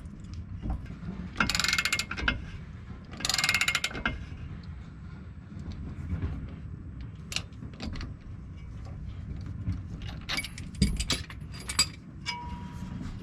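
Socket ratchet clicking in two quick runs of turns, then scattered sharp metal clicks and knocks, as a U-joint is worked into a Jeep TJ's front axle yoke with a C-press. A short steady tone sounds near the end.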